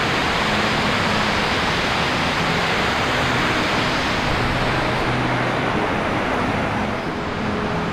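Steady rush of flowing water, a loud even hiss that dips slightly near the end.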